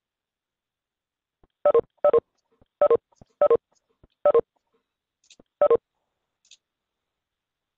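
Video-conferencing app's notification chime sounding six times in quick succession, short identical tones a fraction of a second apart: the signal of participants leaving the meeting.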